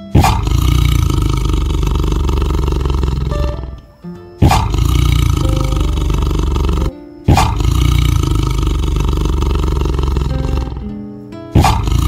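Tiger roaring: four long, loud roars, each starting suddenly and lasting about three seconds, with short pauses between. Light background music plays underneath.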